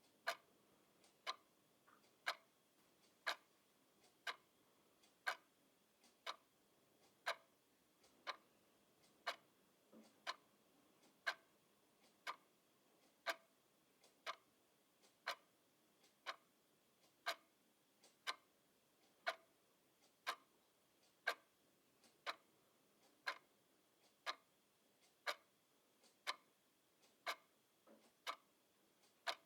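Clock ticking steadily at about one sharp tick a second, the ticks standing out against a very quiet background.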